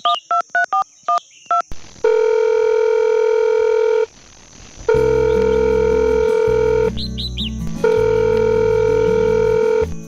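Electronic beeping. It opens with a quick run of short two-note beeps, then a long steady beep is held for about two seconds, three times with short gaps between. Music-like low notes and a few brief chirps sound under the later beeps.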